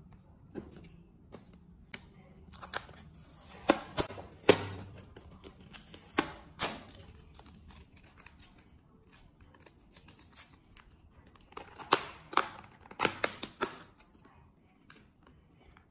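Clear plastic takeaway food boxes being handled and opened: sharp crinkling snaps of the thin plastic and tearing of a paper seal band. They come in two bursts, from about three to seven seconds in and again around twelve to thirteen seconds in, as a lid is pulled off.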